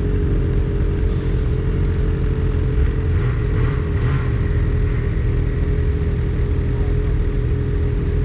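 Snowmobile engine running steadily at low speed, heard from the rider's own sled, a continuous low drone.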